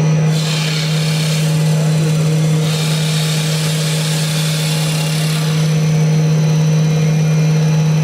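CNC wood lathe running with a loud, steady hum. Two stretches of higher hiss come over it, the first briefly just after the start and the second from about three to five and a half seconds in.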